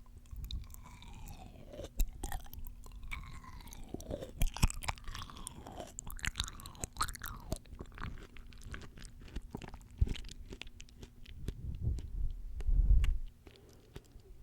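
Close-miked chewing of crunchy, juicy fresh fruit, with crisp crackles and wet squelching mouth sounds. There is a louder, heavier chew shortly before the end.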